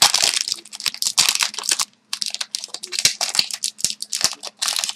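Foil wrapper of a 2012-13 Upper Deck Artifacts hockey card pack being torn open and crinkled by hand: irregular crackling and rustling, with a brief pause about two seconds in.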